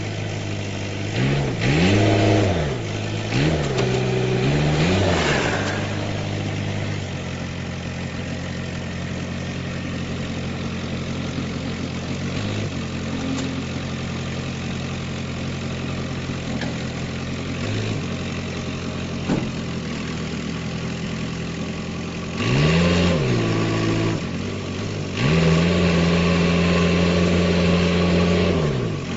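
A vehicle engine revs up and down several times, then runs steadily at a lower speed. Near the end it revs again and holds at a higher speed.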